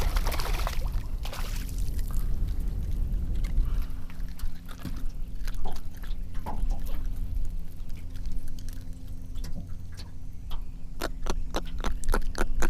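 Water splashing as a hooked jack crevalle thrashes at the surface, with wind buffeting the microphone. A faint steady hum comes in after a few seconds, and a quick run of sharp clicks and taps builds near the end.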